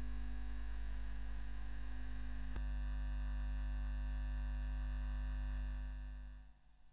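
Steady electrical mains hum with a buzz of even overtones. A click about two and a half seconds in brings in a brighter, higher buzz, and it all fades away near the end.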